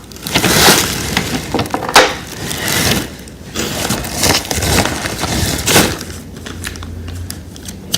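Wooden toy railway pieces being handled and set down, with a sharp knock about two seconds in and another just before six seconds, amid scraping and rustling.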